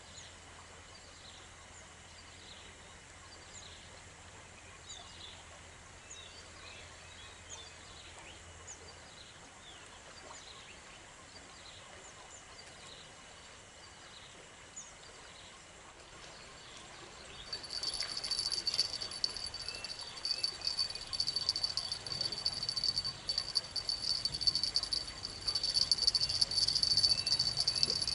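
Faint, scattered high chirps over a quiet outdoor background, then about two-thirds of the way in an insect starts a loud, steady, high-pitched trill with a rapid pulse, which keeps going.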